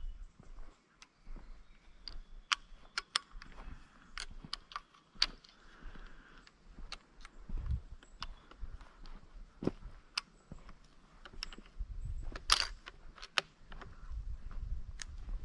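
Footsteps through dry bush litter: irregular sharp cracks and clicks of twigs and sticks snapping underfoot, with one louder crack near the end.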